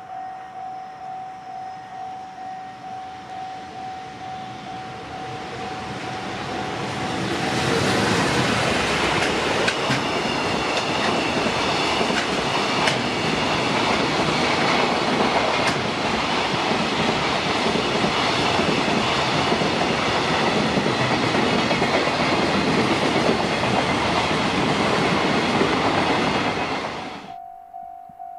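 Japanese level-crossing warning bell ringing, about two strikes a second, as a freight train approaches. About seven seconds in, the passing train takes over: a loud rush of wagons with wheels clattering over the rails drowns the bell for about twenty seconds. The train noise cuts off sharply as the last wagon clears, and the bell is heard again near the end.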